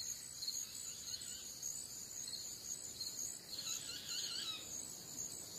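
Faint evening chorus of crickets and other insects: a steady high-pitched trill, with a few softer chirps partway through.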